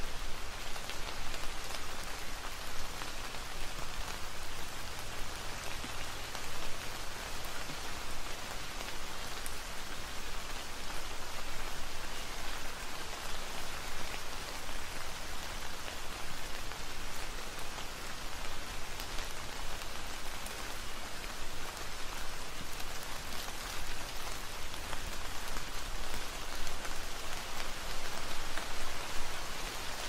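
Steady rain falling on grapevine leaves, with many separate drops ticking close by over an even hiss.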